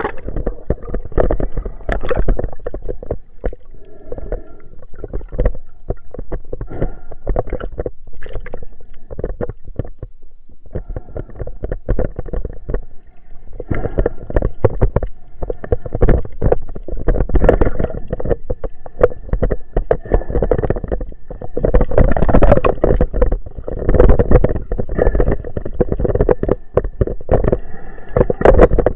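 Underwater sound heard through a waterproof camera housing: muffled rushing and gurgling of water with a dense run of irregular clicks and knocks as the camera moves through the sea. It grows louder in the second half.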